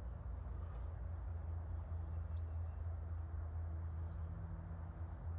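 Small birds giving short, high chirps about once a second, over a steady low hum.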